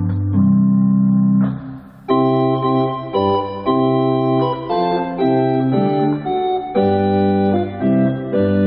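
Church organ playing a chorale in sustained chords that change every second or so. It breaks off briefly about two seconds in, then comes back fuller and brighter.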